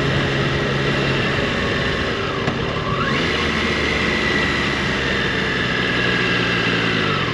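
Triumph Tiger 660's inline three-cylinder engine running while the motorcycle is ridden on the road, heard from the rider's position; the engine note changes about a second in and falls in pitch near the end as the bike slows.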